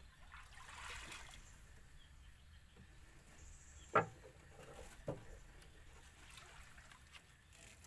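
Two sharp knocks from fishing tackle being handled: a loud one about four seconds in and a softer one about a second later, over a faint steady background.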